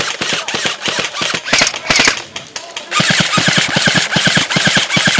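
Airsoft guns firing: scattered sharp shots, then from about halfway in a long, rapid full-auto burst of about seven shots a second.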